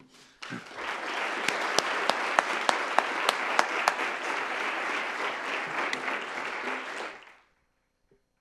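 Small audience applauding, with one person's sharp claps standing out between about one and a half and four seconds in; the applause fades out about seven seconds in.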